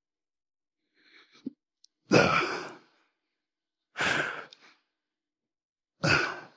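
A man's hard exertion breaths: three sharp exhalations about two seconds apart, one with each rep of a set of single-arm dumbbell side lateral raises.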